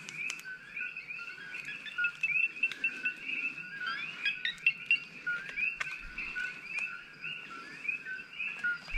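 Chorus of many coqui frogs calling, short high chirping calls overlapping without pause, with a few sharp light clicks among them.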